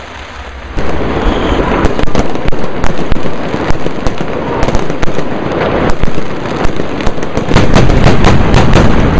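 Fireworks display going off overhead: a dense, continuous crackling and popping of aerial shell bursts with sharp bangs scattered through it, starting abruptly about a second in.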